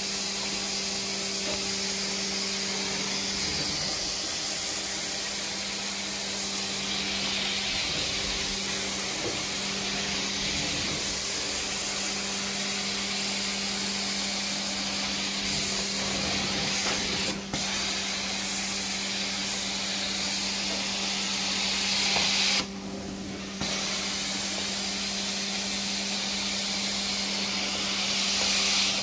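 Carpet extraction wand spraying and vacuuming soiled carpet: a steady rushing hiss of suction and spray over a constant low hum. The hiss dips for an instant once and drops out for about a second about two-thirds of the way through.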